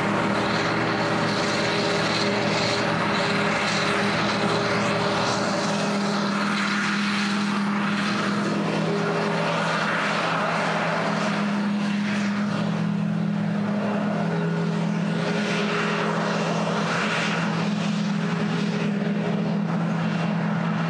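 Camera drone's propellers running with a steady hum: several close pitches that shift slightly up and down as the drone holds its course.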